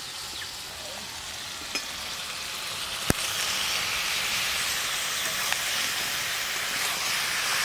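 Onion-tomato spice paste sizzling in a hot pan as steamed mushrooms are added and stirred in; the sizzle grows steadily louder, with one sharp knock about three seconds in.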